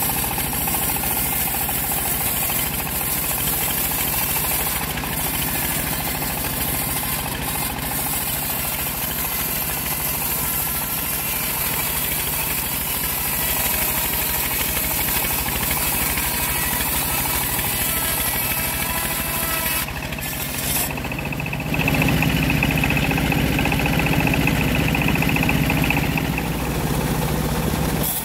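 Engine-driven homemade bandsaw sawmill running steadily while sawing a large acacia log. About 22 seconds in it grows louder, with a steady high whine over the engine.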